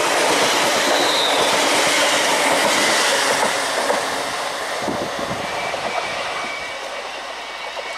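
ScotRail Class 380 electric multiple unit passing close by at speed without stopping: a loud, dense rush of wheel and rail noise that slowly fades over the second half.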